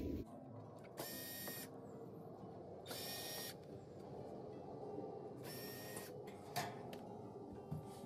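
Cordless drill-driver backing out Phillips-head screws from a dishwasher's side panel: three short runs of the motor, each about half a second, with a sharp click after the third.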